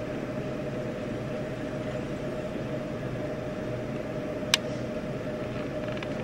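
Steady hum and hiss, with a faint steady tone running through it. A single sharp click about four and a half seconds in.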